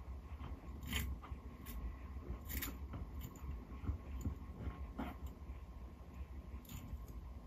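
A Greek tortoise (Testudo graeca) biting and chewing cuttlebone: four sharp, crisp crunches a second or two apart, with softer nibbling ticks between.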